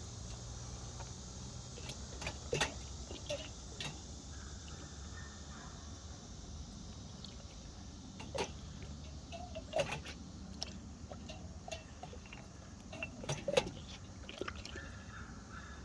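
Steady outdoor insect drone, with scattered light clicks and knocks every few seconds and a few small water sounds.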